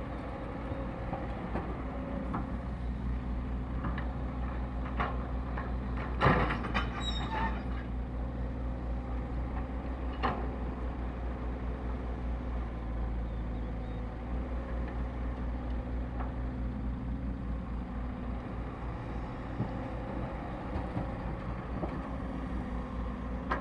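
Excavator's diesel engine running steadily while digging, its note shifting a little a couple of times, with a few sharp knocks of the working machine, the loudest about six seconds in.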